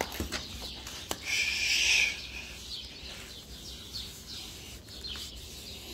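Birds chirping in the background, with a short hiss lasting under a second about a second and a half in.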